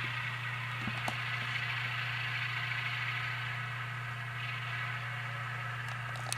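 Diesel engine sound of an Alco C424 locomotive played by a Tsunami sound decoder through a model locomotive's small speaker, running steadily, with a few light clicks.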